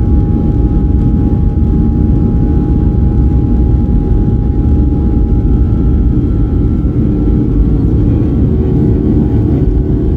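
Boeing 737-800's CFM56 jet engines and airflow heard inside the cabin from a window seat: a loud, steady low rumble with a few steady high tones over it.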